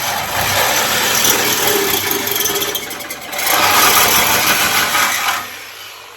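Power tool cutting through sheet metal, a loud continuous rasping that eases briefly around the middle, then shuts off a little after five seconds in and spins down.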